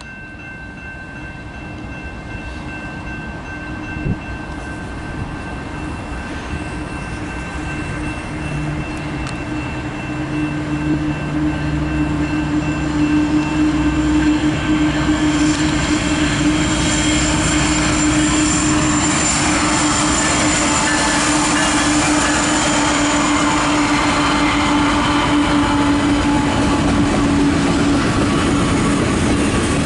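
Freight train led by two GE diesel-electric locomotives (ET44AC and ES44AC) approaching, its engine sound growing louder over the first half. The freight cars then roll steadily past on the track, with a steady tone running throughout.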